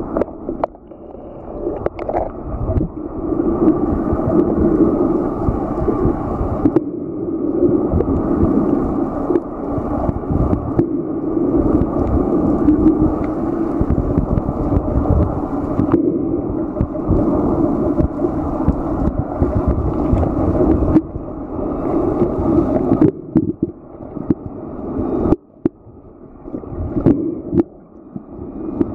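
Muffled underwater noise picked up by a camera held underwater: a steady gurgling wash of water, dull and without any crisp highs, with scattered small knocks.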